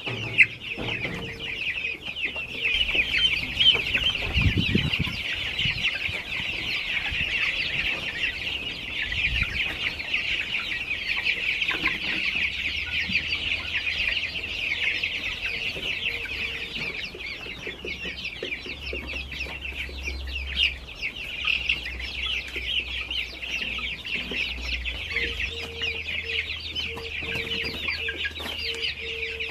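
A flock of baby chicks peeping constantly, a dense chorus of short high cheeps overlapping without a break. A brief low rumble comes about four seconds in.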